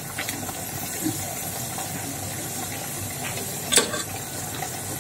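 Pieces of boiled beef being dropped into a collapsible plastic colander, with a few light clicks and one sharper knock nearly four seconds in, over a steady hiss.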